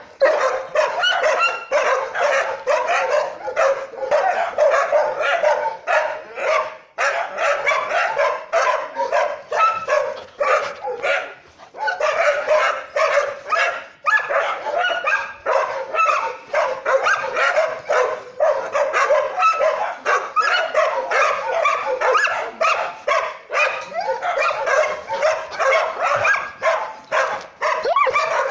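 Several dogs barking and yelping without pause, the barks overlapping several times a second, from kennel dogs.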